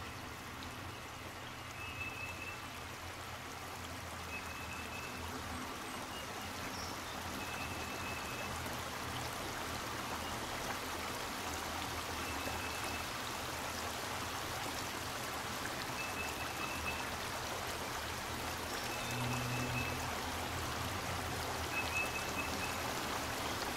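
Mountain trout stream running, a steady rush of water that grows slightly louder, with a short high chirp repeating every few seconds.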